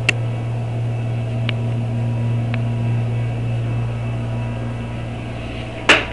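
Steady low hum from running equipment, with a few faint clicks in the middle and a single louder knock near the end.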